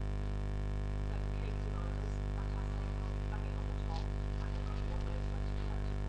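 Steady low hum made of several constant tones, with faint, brief scratches and clicks now and then.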